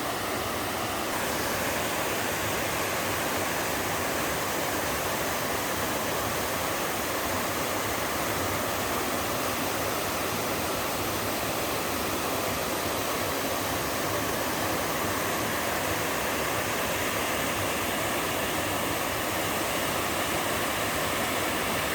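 Two-tier slide waterfall, water rushing steadily over slanting rock, a little louder from about a second in.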